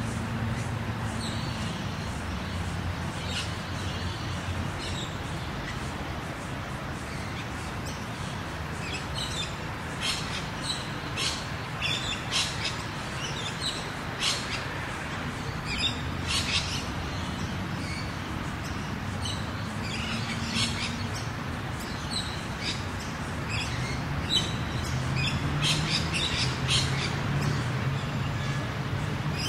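Rural ambience: birds chirping and calling again and again, busiest around the middle and near the end, over a steady low hum of distant car engines that swells a little toward the end.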